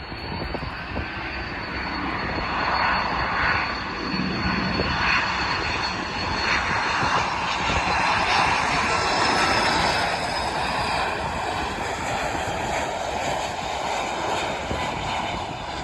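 Airbus A330-300 jet airliner with General Electric CF6-80E1 turbofans coming in to land: a broad rushing jet noise with a faint high whine, growing to its loudest about halfway through and easing slightly near the end.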